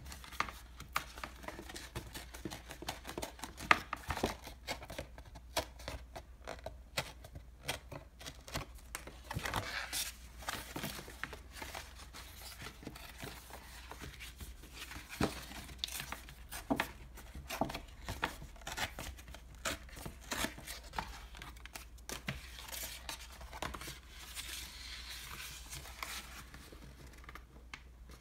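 Thin paperboard of an ice cream box being handled, bent and creased by hand: irregular crisp crackles, rustles and sharp clicks of the card, with a steadier rubbing rustle near the end.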